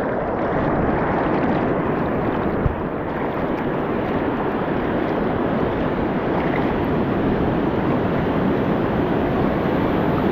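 Sea surf washing in close around the feet, a steady loud rushing, with wind rumbling on the microphone.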